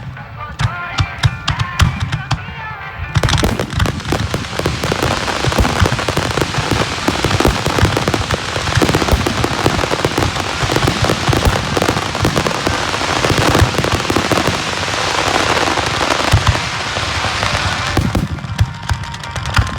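Fireworks finale exploding close overhead: sharp bangs and booms at first, then from about three seconds in a dense, continuous crackling barrage of many shells, thinning out near the end. Music plays under the first few seconds.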